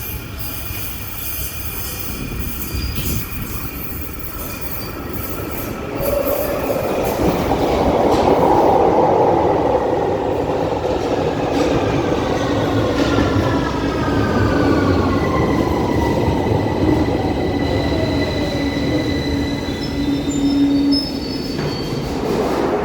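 London Underground 2009 Stock train arriving and braking: rail and wheel noise grows louder about six seconds in, then the traction motors' whine falls steadily in pitch over several seconds as the train slows, with wheel squeal.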